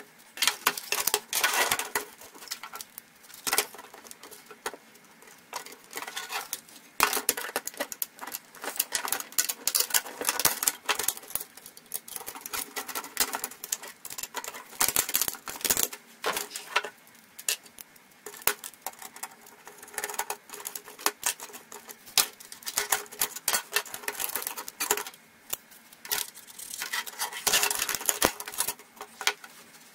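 Irregular clicks, taps and scrapes of screwdrivers and small metal parts on a laptop's metal chassis as it is unscrewed and taken apart, with parts knocking on a wooden bench.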